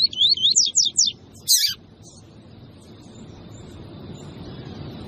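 A songbird sings a quick phrase of high, up-and-down slurred whistled notes in the first second. A short, harsh high note follows about a second and a half in. After that there is only a faint steady background with a thin high tone.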